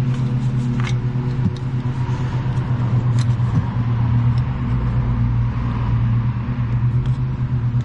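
Steady low machine hum that holds one pitch, with a few light clicks about one and three seconds in.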